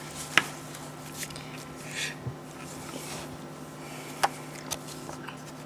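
Old paper identity cards and envelopes being handled on a table: soft paper rustling as the folded cards are opened, with two sharp taps, one near the start and one about four seconds in. A steady low hum runs underneath.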